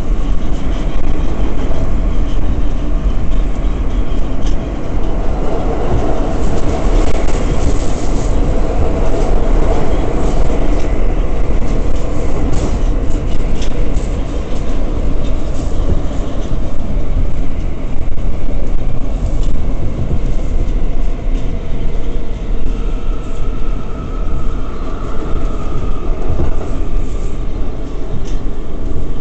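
R179 subway car running on the track, heard from inside the car: a steady rumble of wheels on rails with scattered clicks. A faint high whine rises over it for a few seconds near the end.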